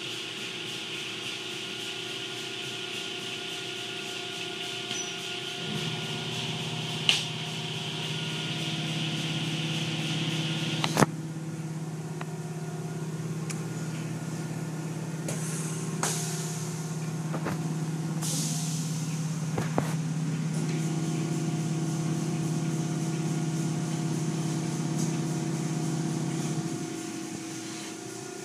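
Automatic car wash heard from inside the car: cloth strips and water spray washing over the bodywork under a steady hiss, with a machinery motor humming from about six seconds in until near the end. Two sharp knocks, one about seven seconds in and a louder one at about eleven seconds.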